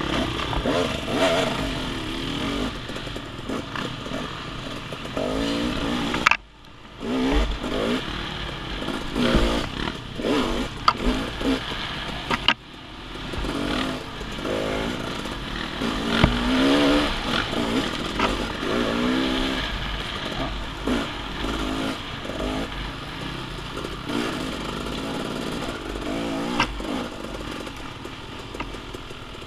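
Off-road dirt bike engine running under changing throttle, its pitch rising and falling as the bike is ridden along a trail. The sound drops away suddenly twice, about six and twelve seconds in, then picks back up.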